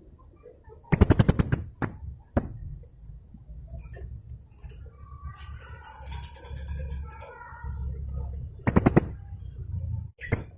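Blue-crowned hanging parrot (serindit) giving its 'tembakan' rapid-fire call: fast machine-gun-like trains of shrill, high ticking notes, a long burst about a second in, a short one at two and a half seconds and another near the end. Faint, softer twittering comes in between, over a low steady hum.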